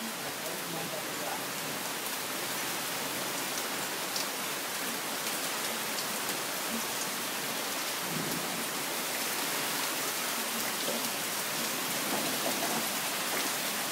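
Rain pouring down, a steady dense hiss of many drops that grows slightly louder as it goes on.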